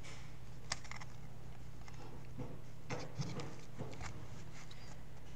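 Scattered light clicks and taps from small parts and tools being handled during the cable repair, a sharp click early on and a cluster about three seconds in, over a steady low hum.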